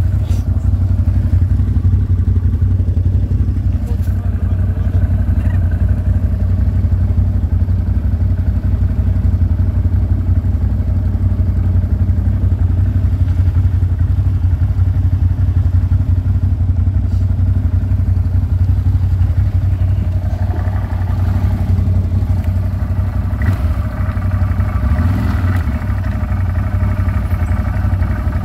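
ATV engine running steadily at an even speed, a constant low drone.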